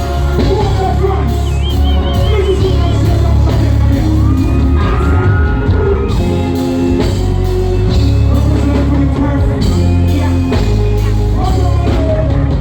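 Live dancehall music played loud through a concert sound system: a heavy, steady bass with a voice singing and shouting over it. A warbling high tone sounds briefly about two seconds in.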